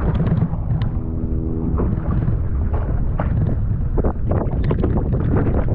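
Wind buffeting the microphone on a boat, with a dense low rumble, and a run of sharp knocks and clatters in the second half.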